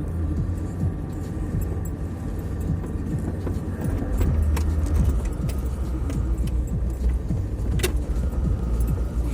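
Land Rover Discovery 2 being driven off-road, its engine running as a steady low drone. Scattered knocks and jingling rattles come from the body and loose items, with one sharp knock near the end.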